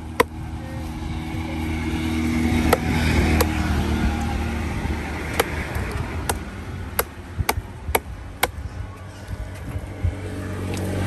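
A long heavy fish knife chopping through a large fish on a wooden log chopping block: about ten sharp chops, spaced unevenly and coming quicker in the second half. Beneath them runs a steady low engine hum that swells a couple of seconds in and again near the end.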